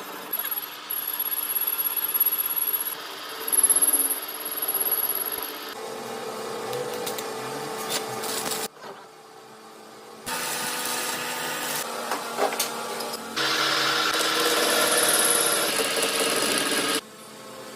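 Workshop power-tool and metalworking noise from a string of short edited clips, the sound changing abruptly every few seconds between different machining and tool sounds, with a thin high whine in some of them.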